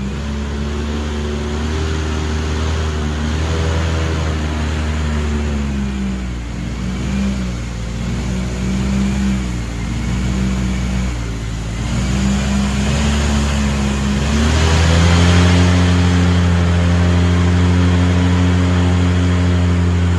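Airboat engine and propeller running loud, the pitch wavering as the throttle is eased on and off, then rising about two-thirds of the way through and holding steady at higher power.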